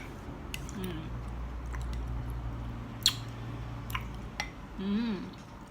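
Eating sounds: a spoon clicks sharply against a bowl a few times, the loudest about three seconds in, with mouth sounds of eating and a brief hummed 'mm' near the end.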